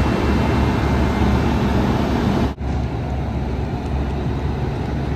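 Indian Railways WAP-7 electric locomotive standing at the platform, its blowers and machinery running with a loud, steady drone over a low hum. The sound drops out for an instant about halfway through, then carries on slightly quieter.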